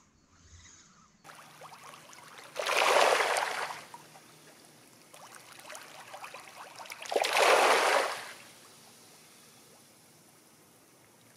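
A shoal of small fish breaking the sea surface: a fine fizzing patter of many tiny splashes that swells loud twice, each surge lasting about a second.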